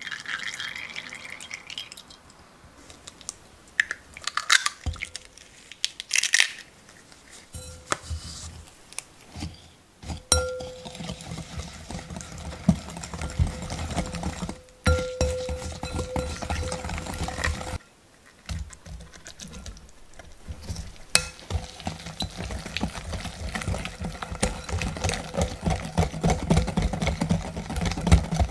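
Vegetable oil poured in a thin stream into a glass mixing bowl for a couple of seconds. After a few scattered clinks, a wire whisk beats batter against the glass bowl in a fast, continuous run of clinks and scrapes.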